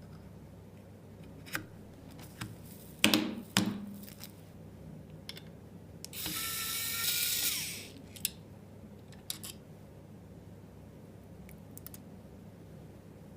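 Small electric screwdriver whirring for about a second and a half while driving a screw, its pitch rising slightly and then falling as it stops. Around it are scattered clicks and two sharp knocks of parts being handled.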